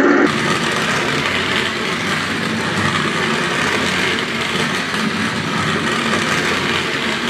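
Toy radio-controlled Monster Jam Grave Digger truck driving across a hardwood floor: its small electric drive motor and gears whir steadily as it rolls.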